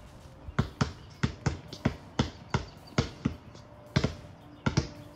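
Basketball being dribbled on a concrete driveway: a steady run of bounces, about three a second, starting about half a second in, some landing in quick pairs.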